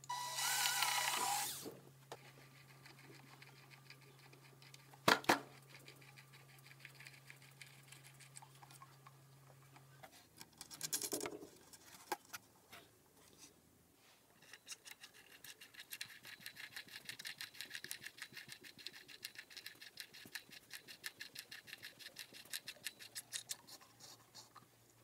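Cordless drill running briefly at the start as it bores a hole through a painted pine drawer front, followed by a couple of sharp clicks. Over the last ten seconds, a long run of fast, soft clicks as a ceramic drawer knob is screwed on by hand.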